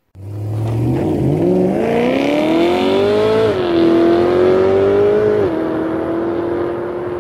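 BMW E92 M3's S65 V8 accelerating hard, the engine note climbing steadily and then dropping sharply twice at the upshifts, about halfway through and again later. After the second shift it runs on steady and slowly fades.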